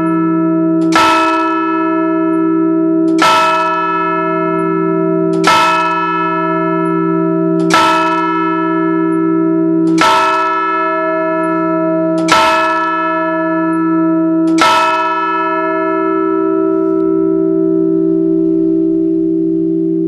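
Church bells of a four-bell peal, three of them Baroque bronze bells cast in 1788, ringing: a stroke about every two seconds over a steady, lingering hum. The strokes stop about 15 seconds in and the hum rings on.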